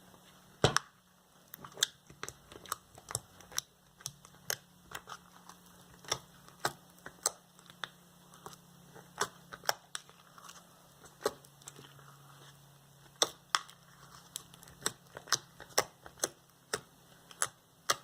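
Clear glue slime being squeezed and worked by hand, giving irregular sticky clicks and pops about one or two a second, with a sharper knock about a second in.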